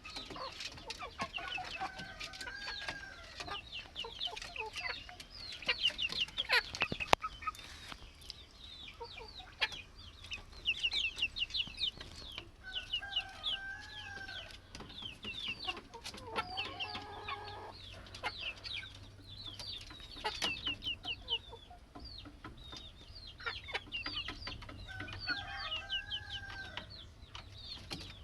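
Chicks peeping, a continuous stream of high, quick, falling cheeps. An adult chicken's lower clucking calls come in now and then, and there is a sharp click about seven seconds in.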